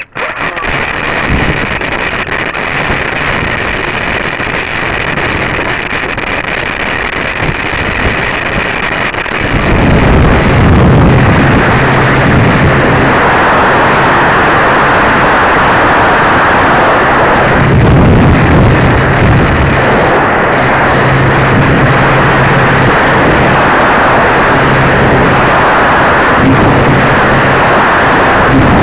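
Electric motor and propeller of a ParkZone T-28 RC plane, heard through its onboard camera's microphone, with heavy wind rush over the mic and a steady low hum. The sound jumps louder about ten seconds in and stays loud through the flight.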